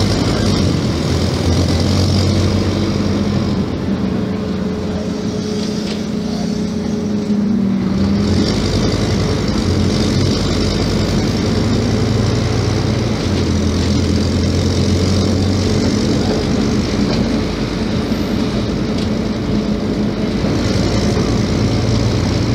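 Scania K270 IB bus engine running under way, heard from inside the bus, its low drone steady with a few shifts in pitch as the bus changes speed.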